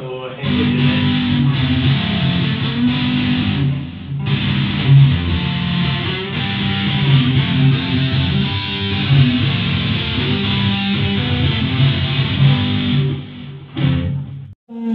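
Electric guitar played through a column PA speaker, a continuous stream of low notes and chords with higher lines over them. It cuts off abruptly just before the end.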